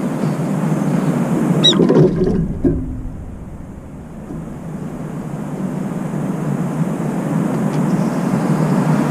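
Brown-eared bulbul giving one short, shrill, high call about one and a half seconds in, followed by a brief burst of noise. Under it runs a steady low background rumble.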